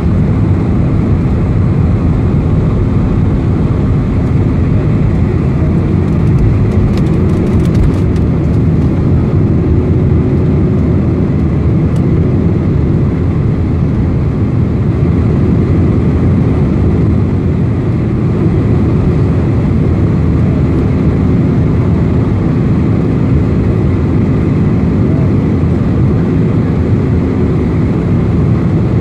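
Jet engines of a four-engined airliner running at takeoff thrust, heard from inside the cabin: a loud, steady rushing noise with a low steady hum, through lift-off and the initial climb. A few faint clicks about seven seconds in.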